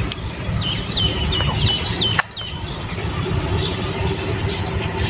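A bird giving a quick series of about six short, high chirps over a steady low outdoor background rumble; the sound dips sharply for a moment just after two seconds in.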